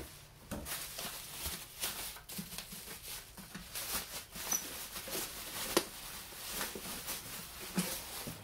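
Cardboard shipping box being handled and opened by hand: irregular scratching, rustling and small knocks of cardboard flaps and packaging.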